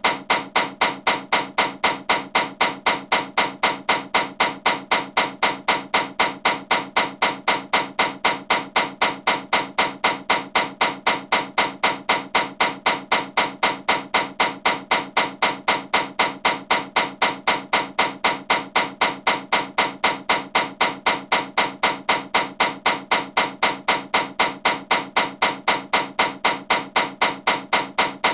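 Ceiling fan running with a sharp, steady knocking, about three knocks a second, evenly spaced and loud.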